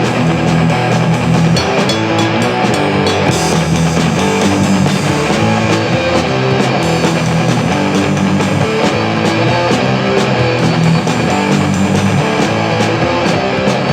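Rock music, loud and steady: an electric guitar with a drum kit keeping a regular beat, no singing.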